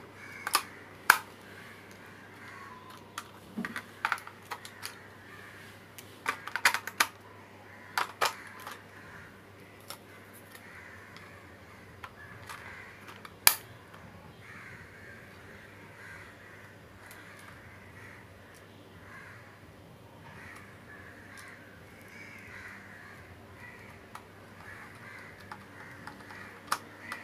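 Sharp plastic clicks and knocks from fitting AA batteries into a toy RC car's battery compartment and snapping its cover shut. Most come in the first nine seconds, with one loud click about halfway and another near the end.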